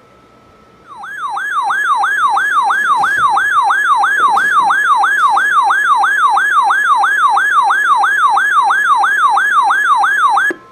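Electronic alert tone from an emergency alert broadcast: a pitch that falls sharply over and over, about three times a second. It starts about a second in, after a faint steady tone, and stops just before the end, where a short steady beep follows.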